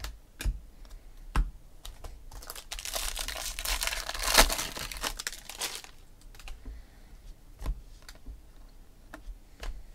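A shiny foil trading-card pack wrapper being crinkled and torn open: a dense crackle from about two and a half seconds in to about six, with its sharpest rip near the middle. Before and after it come scattered light clicks of cards being handled.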